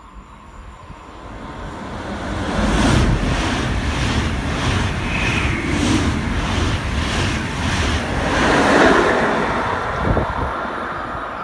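SBB IC2000 double-deck intercity train running through a station at speed. It builds up as it approaches, then rushes past close by with a rhythmic clatter of wheels over the rails and a rush of air.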